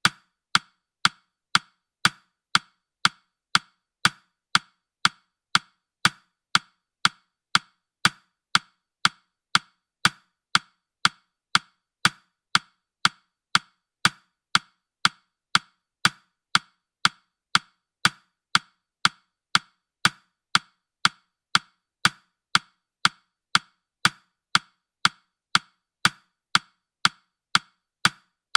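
Steady clock-style ticking of a countdown timer: short, sharp ticks evenly spaced about two a second.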